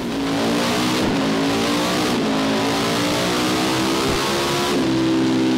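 Honda CB500 parallel-twin engine in a full-throttle power run on a motorcycle dyno, the revs climbing steadily under load; about four and a half seconds in, the throttle is shut and the revs begin to fall.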